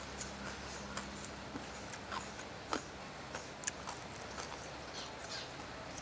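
Soft, irregular wet clicks and sticky smacks as fingers pull khanom jeen rice noodles out of a bowl of saucy papaya salad, over a steady low hiss.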